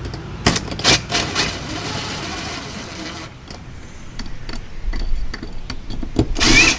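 Cordless drill-driver running in short bursts to drive an outlet's mounting screws into its box: a few quick bursts near the start and a longer one near the end, with small handling clicks between.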